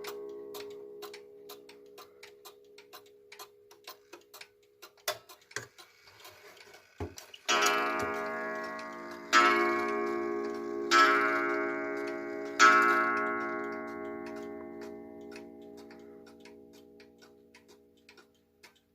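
Junghans Vienna-style wall clock ticking steadily as its hammer strikes the coil gong four times, about one and a half to two seconds apart, each stroke ringing on and slowly fading. The ring of an earlier stroke dies away at the start, and a dull clunk from the striking train comes just before the first stroke.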